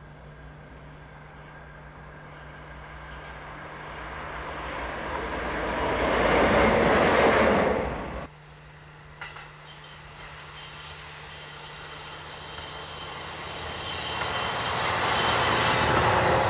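A JNR Class DD51 diesel locomotive approaches and passes, its engine and running gear growing steadily louder for about eight seconds before the sound cuts off abruptly. A diesel railcar then approaches and grows louder, passing close near the end.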